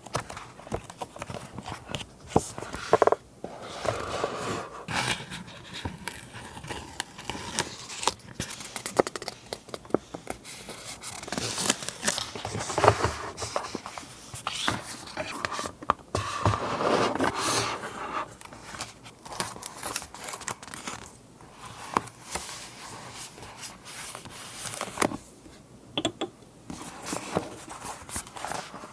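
Paper materials being handled for scrapbook journaling: irregular rustling and crinkling of paper, with many small sharp clicks and taps.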